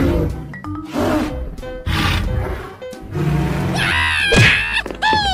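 Background music with a cartoon dinosaur roar sound effect, loudest about four seconds in, followed by a falling tone near the end.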